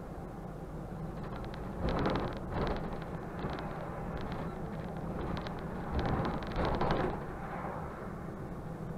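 Mercedes-Benz Conecto city bus on the move, heard from the driver's cab: a steady engine and road rumble, with two louder, rattly stretches of noise about two seconds and six seconds in.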